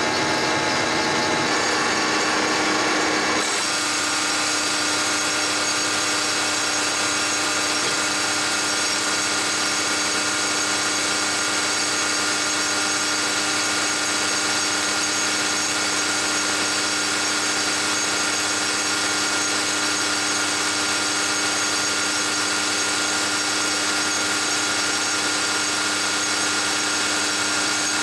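Diesel injection pump test stand running a VE rotary injection pump through PowerJet Stage 2 injectors: a steady mechanical whine and hum. The sound shifts about three and a half seconds in and then holds steady.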